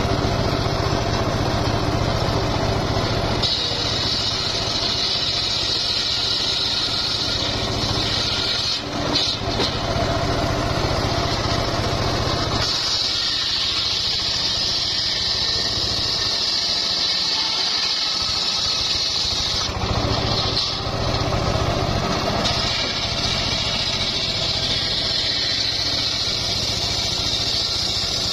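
Homemade bench circular saw ripping a log lengthwise: the saw's engine runs steadily while the blade cuts through the wood with a high hiss, in three long passes that break off briefly about 8 s and 20 s in.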